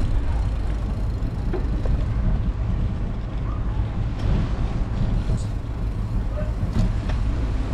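Steady low rumble of a bicycle rolling over brick paving, with wind buffeting the microphone and a few light rattling clicks.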